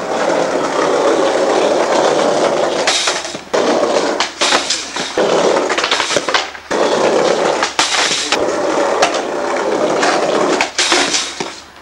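Skateboard wheels rolling loudly over a paved floor, broken by several sharp clacks of the board popping and landing.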